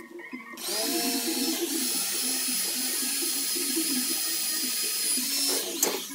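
An electric power tool's motor spins up with a rising whine and runs steadily with a loud, hissing whir for about five seconds, then stops shortly before the end.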